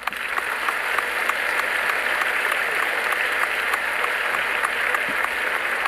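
Crowd applauding, a steady even clapping that starts suddenly and holds at one level.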